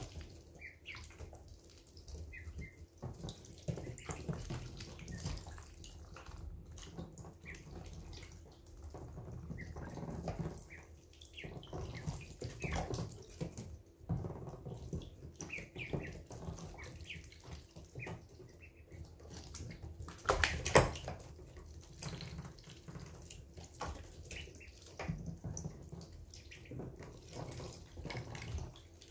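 Week-old ducklings drinking and dabbling in a shallow water dish: uneven splashing and slurping, with a few short, soft peeps. A single sharp knock about two-thirds of the way through is the loudest sound.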